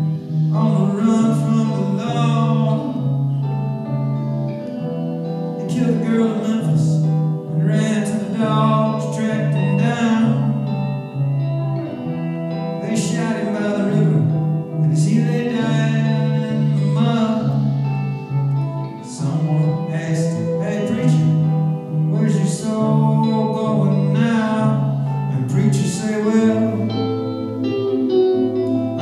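Live music: a man singing to his own guitar, over a steady, repeating pattern of low notes.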